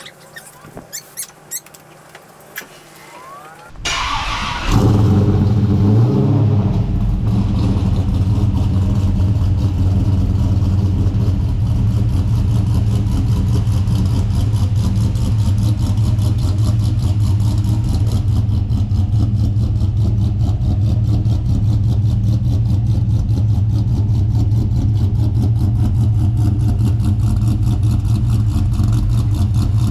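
A few light clicks, then about four seconds in the starter cranks briefly and the LS1 5.7-litre V8 catches and settles into steady running.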